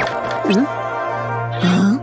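Cartoon soundtrack: steady playful background music with short sliding squeaks laid over it, a quick falling swoop at the start, a brief squeak about half a second in, and a louder short squeak near the end.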